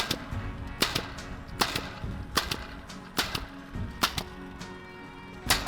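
3.15 mm pneumatic batten stapler firing staples into fence battens. Sharp shots come about once every 0.8 seconds, with a longer gap before the last one.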